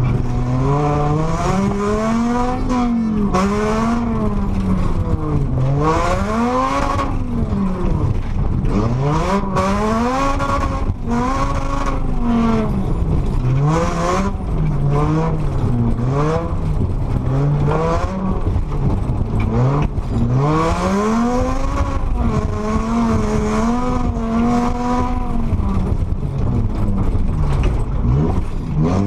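Car engine heard from inside the cabin while the car is driven hard on a dirt course, revving up and dropping back over and over, its pitch rising and dipping every second or two. Under it is a steady rush of tyre and gravel noise.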